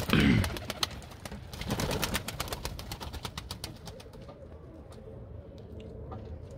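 Domestic pigeons bathing in a shallow basin of water: wings flapping and water splashing, loudest at the very start and thinning out after about four seconds, with pigeons cooing low.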